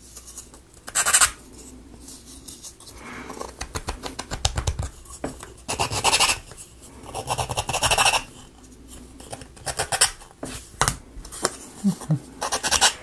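Hand sanding tool scrubbing back and forth on laser-cut wooden puzzle pieces, in short bursts of quick scratchy strokes with pauses between, cleaning up the rough edges and nooks where the parts were broken out of the sheet. Now and then there is a light knock of wood.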